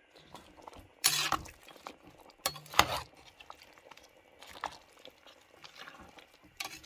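Slotted metal spoon stirring a chunky vegetable and rabbit stew in a cast iron camp oven, knocking and scraping against the pot. The loudest knocks come about one second in and just under three seconds in, with lighter clinks and scrapes after.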